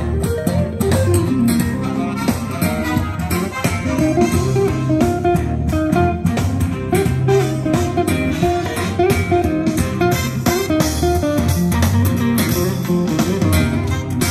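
Guitar-led music with bass guitar, played through a Marshall Emberton II portable Bluetooth speaker.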